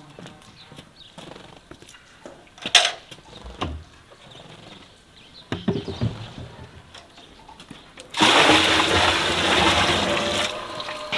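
Water poured from a metal bucket into an empty wooden barrel: a loud, steady gush that starts about eight seconds in and eases off near the end. Before it, scattered light knocks and one sharp click.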